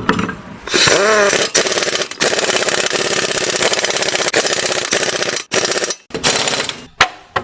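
Impact wrench running and hammering as it spins on and tightens wheel nuts: a fast rattle with a rising whine about a second in, in a few long runs and then two short bursts near the end.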